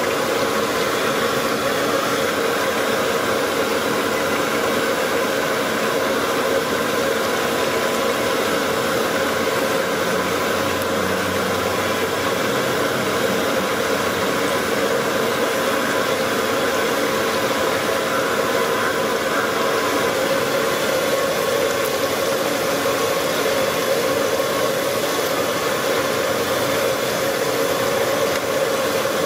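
Batter-coated fish pieces deep-frying in a large wok of hot oil over a gas burner: a loud, steady sizzle with a constant rushing noise underneath.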